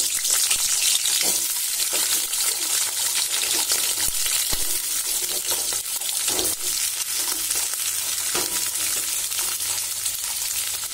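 Peeled shallots sizzling in hot oil in a metal kadai: a steady frying hiss, with a few soft knocks as more shallots are dropped in.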